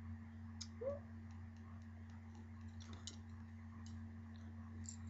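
Clothes being handled and moved about: faint rustling with a few scattered light clicks and taps, over a steady low hum. A brief small vocal sound about a second in.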